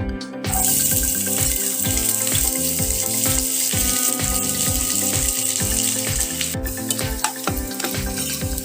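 Food sizzling in hot oil in a cooking pan. The sizzle starts about half a second in and drops out for a moment near the end. Background music with a steady beat plays throughout.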